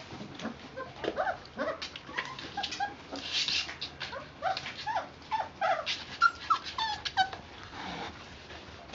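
Young puppies, about four and a half weeks old, whining and whimpering in a string of short, high cries.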